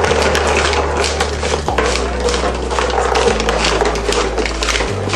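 Glass marbles clicking and rattling as they ride up the hand-cranked cardboard escalator steps and roll along cardboard tracks: a dense, irregular clatter. Under it runs a low steady tone that steps to a new pitch about every second and a half.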